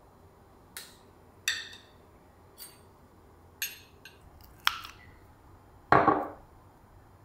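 Kitchen handling sounds from opening a glass jar of coconut oil: a series of light clicks and small clinks, a few with a brief ring. About six seconds in comes a louder knock and short scrape of a metal spoon against a glass mixing bowl as solid coconut oil is scooped in.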